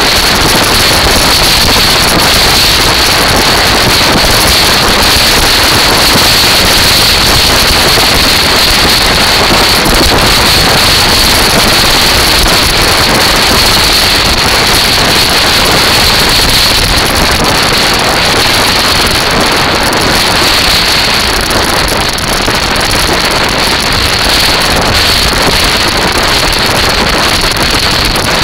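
Steady, loud wind buffeting the microphone of a camera on a moving kite buggy, mixed with the rumble of the buggy's wheels rolling over shingle, and a steady high hiss throughout.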